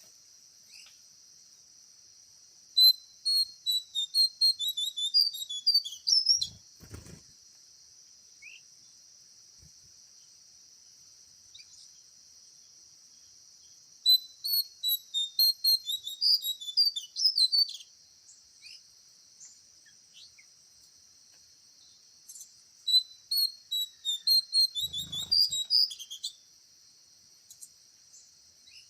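A songbird singing in three bouts of quick, high chirping notes, each a few seconds long, over a steady high-pitched insect drone. Two faint low thuds come just after the first and third bouts.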